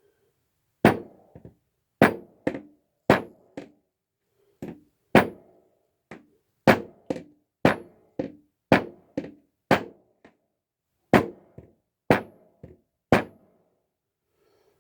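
A run of about twenty sharp knocks, like hammer blows, coming irregularly at roughly two a second, some followed by a lighter rebound knock.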